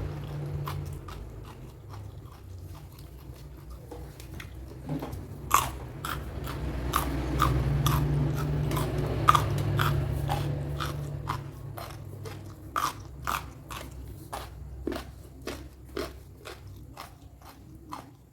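A person chewing crunchy food, with sharp crunches coming about twice a second, over a low steady hum.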